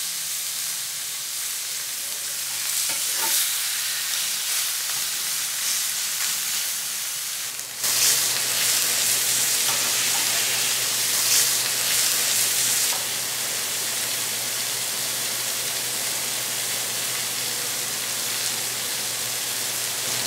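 Steaks searing in a hot cast-iron skillet greased with beef fat: a steady, dense sizzle of fat and juices frying. It turns suddenly louder about eight seconds in and stays even from then on.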